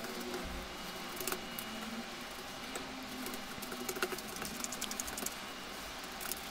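Faint crinkling and small irregular clicks of cling film as gloved hands press and spread lamb mince flat on it.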